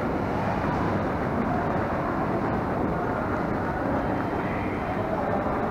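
Steady, even background rumble of a large airport terminal hall, with no distinct events.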